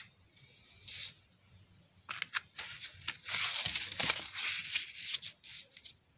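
Stiff watercolor-paper pages of a boiled eco-print book being handled and turned over: a brief rustle about a second in, then several seconds of paper rustling and crackling with sharp crinkles.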